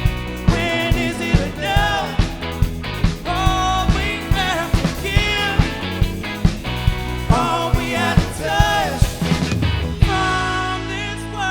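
Live soul-funk rock band playing over a steady drum beat, with a sung melody carried above it. About ten seconds in the drums stop and a final chord is held and left ringing.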